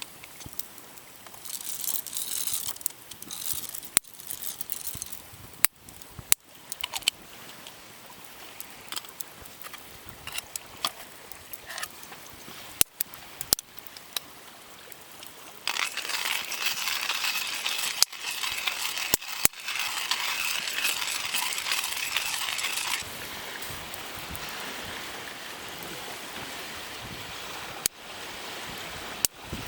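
Small metal objects clinking and knocking now and then, with a steady hiss for about seven seconds past the middle.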